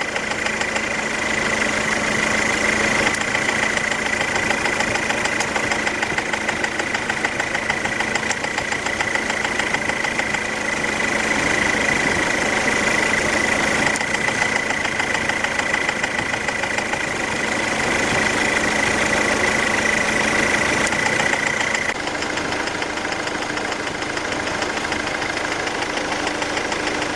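Ford Transit diesel engine idling with a knock from the fourth cylinder, caused by a burnt-through copper sealing washer under the injector; a new injector has not cured it. About 22 seconds in, the sound gets slightly quieter and its tone shifts.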